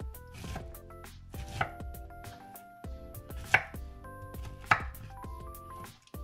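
Chef's knife chopping fresh pineapple into cubes on a wooden cutting board: several knife strikes, three of them sharp and loud, over light background music.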